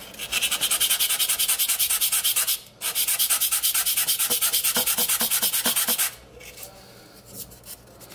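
Depron foam piece rubbed fast back and forth on a sanding block, about six strokes a second, sanding its edge thin. It runs in two spells with a short break near three seconds in and stops about six seconds in, leaving faint handling sounds.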